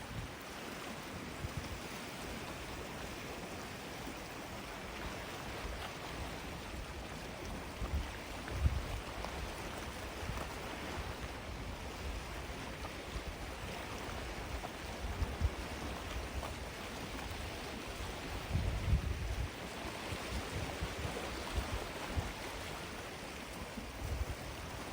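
Gentle sea waves washing onto a sandy beach: a steady, even hiss of surf. Now and then a brief low rumble rises and fades, around a third of the way in and again past the middle.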